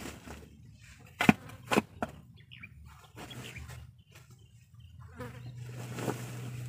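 Shovel digging and scraping in soil and dumping it into a woven sack, with two sharp knocks about a second in as the blade strikes. A low steady hum comes in near the end.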